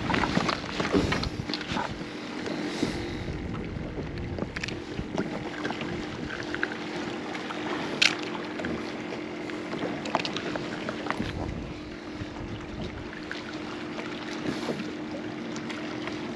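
Water sloshing against a kayak with wind on the microphone, a steady low hum underneath. Gear rustles and knocks near the start, and there is a sharp click about eight seconds in.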